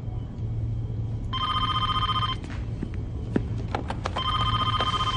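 Electronic telephone ringer sounding twice, each ring about a second long with a short pause between, plus a few sharp clicks between the rings.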